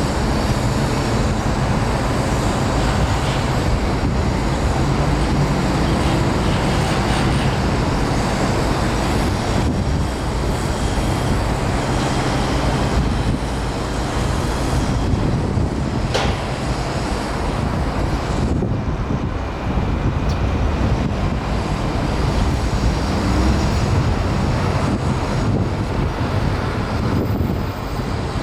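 Steady city traffic noise, with vehicle engines running and a low hum throughout.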